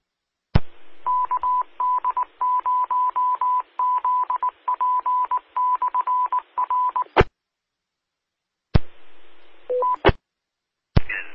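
Amateur radio repeater's Morse code identification: a single-pitch beeping tone keyed in dots and dashes for about six seconds, over radio hiss. Sharp squelch clicks cut the hiss in and out, and a short two-note courtesy beep sounds near the end.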